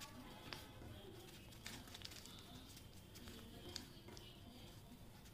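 Faint crinkling and soft taps of origami paper being folded and creased by hand against a tabletop, with a few short sharp clicks scattered through.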